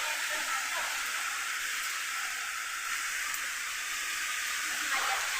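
Steady rushing of a waterfall close by: an even, unbroken hiss of falling water.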